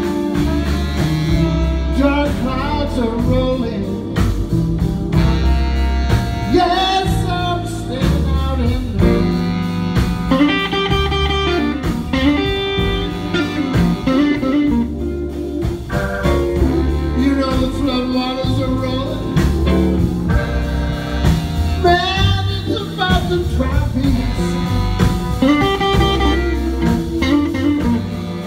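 A live blues band plays a slow blues, with a Stratocaster-style electric guitar playing bent-note lead lines over bass and drums.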